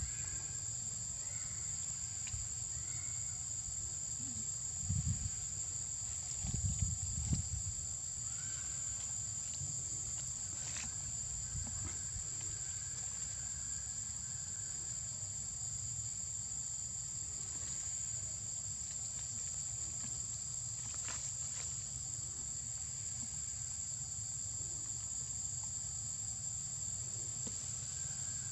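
Steady, high-pitched drone of insects, unbroken throughout. A few low thumps come about five and seven seconds in, over a faint low rumble.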